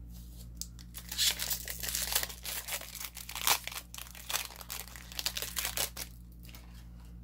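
Foil wrapper of a Magic: The Gathering collector booster pack crinkling and tearing in the hands. It is a dense crackle that starts about a second in and dies down about six seconds in.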